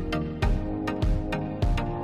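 Background music: pitched instrumental notes over a steady beat, about one strike every half second or so.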